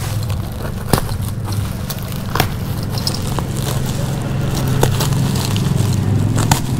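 Woven plastic sack being cut open with a cutter and pulled apart: crackling and scraping of the plastic, with a few sharp clicks, over a steady low hum.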